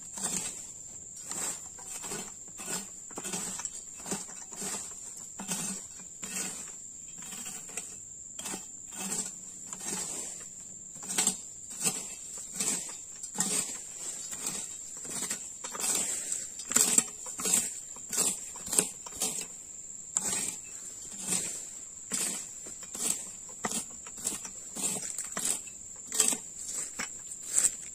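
Long-handled weeding tool scraping and chopping weeds from the base of an oil palm trunk in repeated strokes, about one and a half a second. A steady high-pitched insect drone runs behind.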